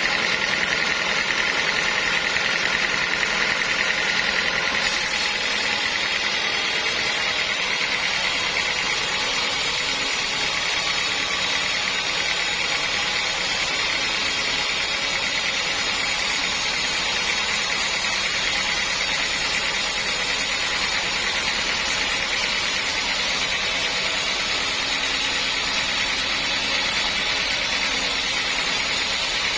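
Sawmill saw and its drive running steadily: a high whine over a dense hiss. The sound gets brighter about five seconds in.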